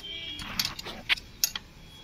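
A few separate light metallic clicks and clinks of a spanner and a loosened bolt being handled on the engine.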